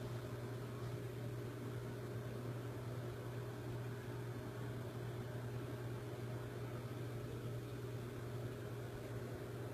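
Steady low hum with an even hiss over it, unchanging throughout, with no distinct knocks, calls or other events.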